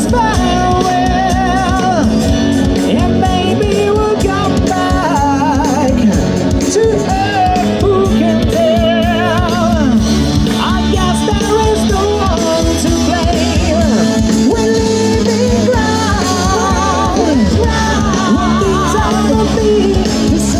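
Music: a pop song with a singer's voice wavering in vibrato over a steady beat.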